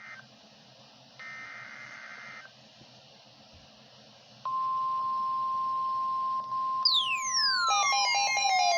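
NOAA Weather Radio emergency alert: faint bursts of screeching digital data tones (the SAME alert header), then about four and a half seconds in the steady 1050 Hz warning alarm tone starts, loud and unbroken. About seven seconds in, falling siren-like sweeps and a fast warbling tone pattern join the alarm tone.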